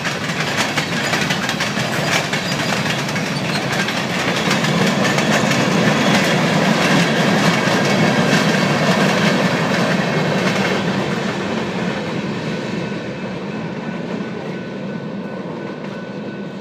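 A freight train's cars rolling past, wheels clicking over the rail joints. It is loudest in the middle and fades away over the last few seconds as the end of the train moves off.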